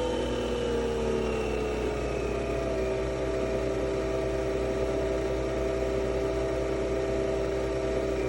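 Nespresso Vertuo Pop+ coffee machine brewing, its motor spinning the capsule with a steady whir. The whir's pitch sinks slowly over the first few seconds, then holds steady.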